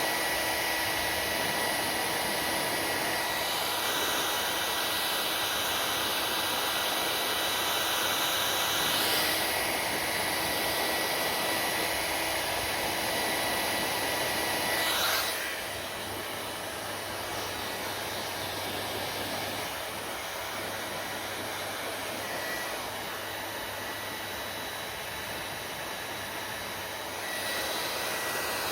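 Hair dryer running steadily, a whooshing hiss of blown air with a faint motor whine; it steps a little quieter about halfway through.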